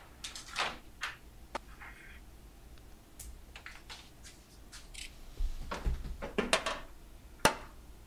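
Frigidaire microwave convection oven door clicking open, then a baking tray of foil muffin cups being set onto the turntable with a series of light clicks and knocks.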